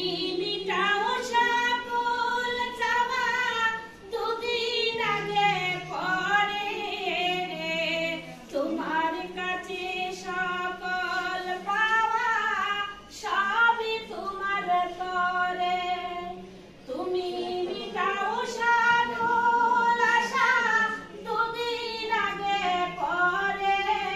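Women singing together in a group, without instruments, in sung phrases broken by short pauses for breath.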